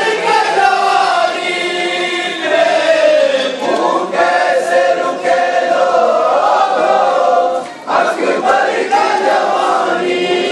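A crowd of men chanting a Shia mourning lament (noha) together in unison. The chant dips briefly about eight seconds in, then picks up again.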